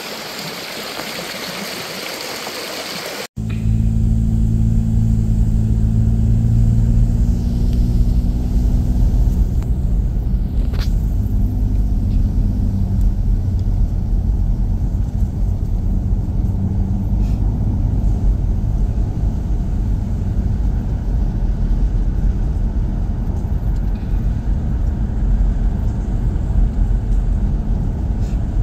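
Rushing water of a waterfall and stream for about three seconds, then an abrupt cut to the steady low rumble of a vehicle's engine and road noise while driving.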